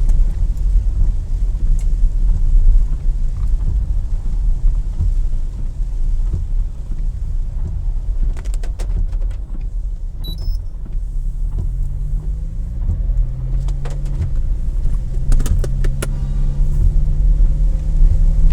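Car driving, heard from inside the cabin: a steady low road and engine rumble with a few clicks. In the last few seconds an engine note rises and then holds.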